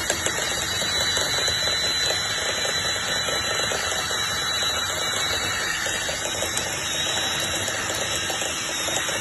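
Dryer vent cleaning equipment running steadily: a loud rush of air through the duct with a thin high whine and fine, rapid ticking of lint and debris.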